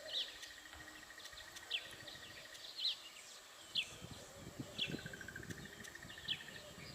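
Bird chirps, short sharp downward notes coming about once a second, over a steady, rapidly pulsing insect trill.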